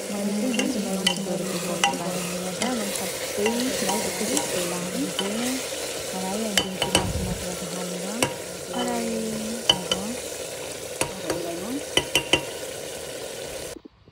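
Chicken curry sizzling in a pot while a ladle stirs it, with sharp knocks and scrapes of the ladle against the pot. The sound cuts off suddenly near the end.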